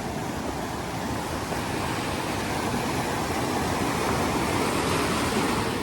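Small mountain waterfall rushing over rocks, a steady hiss of falling water that grows gradually louder.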